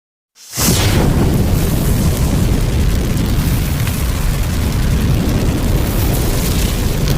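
Fire sound effect: a large blaze burning, a dense, steady rush of noise with a heavy low rumble. It fades in about half a second in.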